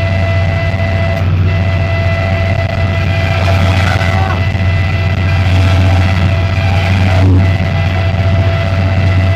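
Henschel diesel locomotive heard from inside its driver's cab at top speed: a steady deep engine drone with a steady whine over it and the rumble of wheels on track. A single sharp knock about seven seconds in.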